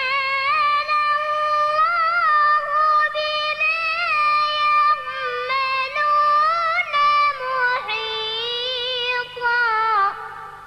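A child's high voice reciting the Quran in a drawn-out melodic tajweed phrase: one long held line with wavering ornaments, stepping down to a lower pitch about eight seconds in and stopping near the end.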